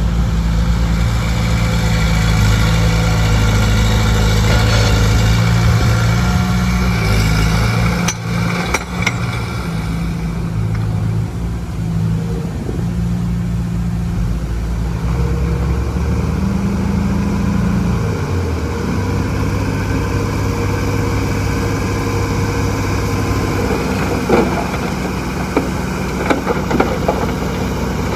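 Diesel engines of heavy earthmoving machinery running steadily, their note shifting and dropping lower about two-thirds of the way through. A few sharp clicks or knocks come about a third of the way in and again near the end.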